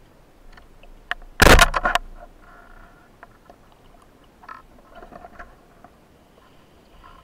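A rubber-band speargun fired underwater. There is a sharp click, then a loud crack about a second and a half in as the bands snap forward and launch the shaft, followed by faint clicks and rattles.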